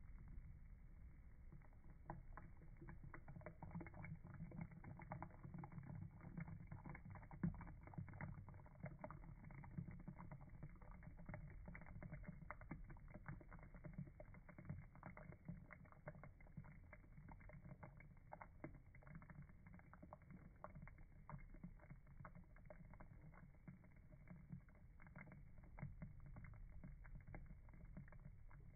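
Near silence: a faint low rumble with scattered soft clicks and ticks.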